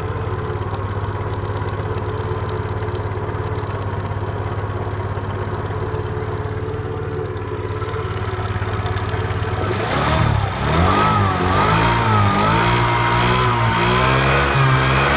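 Suzuki Let's 4 Palette scooter's 50cc four-stroke single-cylinder engine idling steadily, then revved in repeated throttle blips from about two-thirds through, its pitch rising and falling. The owner says the engine makes an abnormal noise, though the scooter rides without problems.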